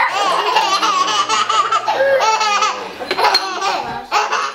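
Small children laughing in repeated high-pitched bursts of belly laughter.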